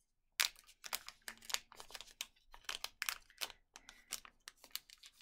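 The packaging of a small magnetic needle minder being worked open by hand: irregular crinkling and tearing with many sharp little clicks.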